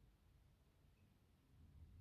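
Near silence: faint low room rumble, with no floorboard creak heard.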